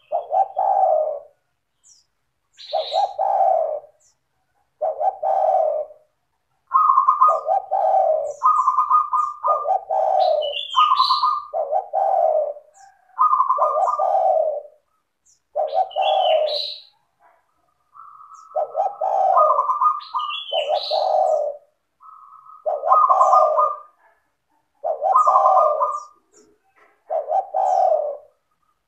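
Spotted dove (tekukur) cooing over and over, a phrase about every two seconds, each rising from a lower coo into a higher, drawn-out note. Short, high chirps come between many of the phrases.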